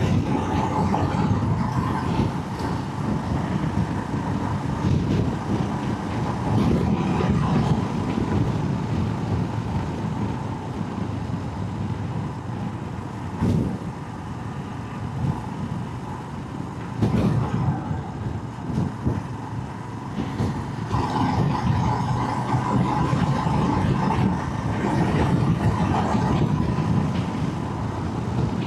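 Motorcycle engine running while riding, with road and wind noise, getting louder and quieter in stretches, and a couple of brief sharp knocks in the middle.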